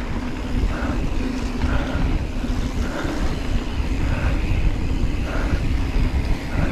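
Wind noise on a GoPro and a low rumble of a Giant Trance mountain bike's tyres rolling fast over a dirt trail. A faint sound repeats about once a second.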